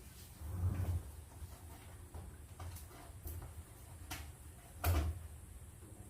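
Two dull knocks about four seconds apart, with a few faint light clicks between, from handling while engine oil is being added.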